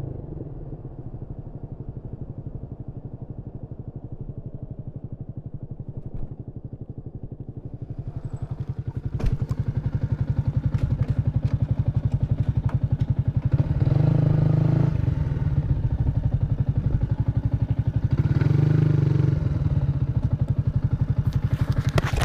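Yamaha MT-125's single-cylinder four-stroke engine through a GPR aftermarket exhaust, running at low revs with a fast, even pulse. From about eight seconds in it gets louder, with wind noise. It opens up briefly twice, once in the middle and once near the end.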